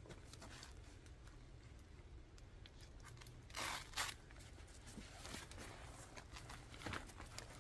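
Velcro straps on a dog's backpack being pulled open: two short ripping sounds about three and a half seconds in, the second one briefer, amid faint rustling of fabric.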